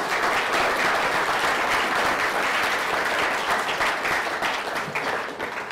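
Lecture audience applauding: the dense patter of many people clapping, holding steady and fading slightly near the end.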